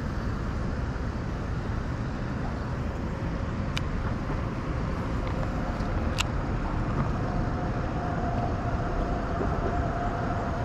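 Steady rumble of road traffic, with two brief sharp clicks about four and six seconds in.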